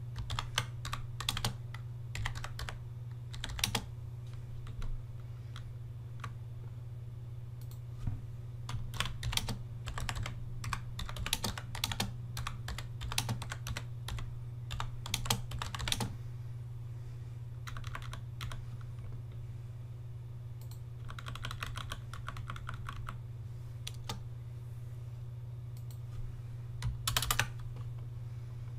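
Typing on a computer keyboard in several bursts of keystrokes with pauses between, over a steady low hum.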